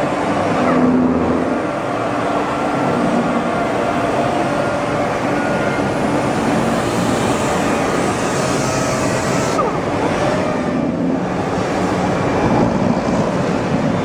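Steady din of woodworking sanding machinery: hand-held orbital sanders working veneer panels, with a wide-belt sanding machine running alongside.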